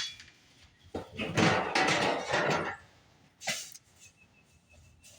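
A scoop of sweet feed poured into a feed container, a grainy rushing rattle lasting about a second and a half, then a shorter pour or scrape about a second later.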